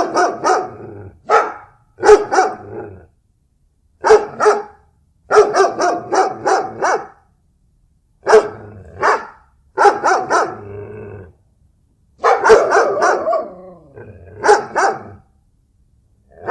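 Dog barking in repeated bursts of several quick barks each, with short silent gaps between the bursts.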